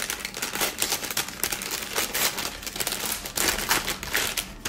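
Packaging crinkling and crackling as a small wrapped package of wax melts is opened by hand, in quick, irregular rustles with a few louder crackles near the end.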